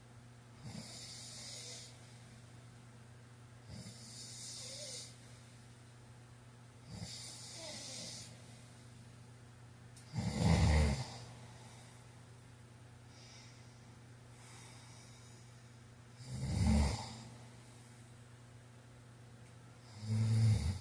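A man snoring in his sleep, with a breath about every three seconds. The first few breaths are soft and hissy. Three louder, deeper snores come about ten seconds in, about sixteen seconds in and at the end.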